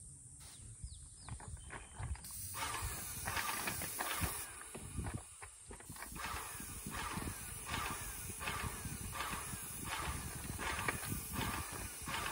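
Airless paint sprayer spraying lacquer onto a pine door: a steady hiss with a rhythmic clacking, about one and a half a second, that starts about two seconds in.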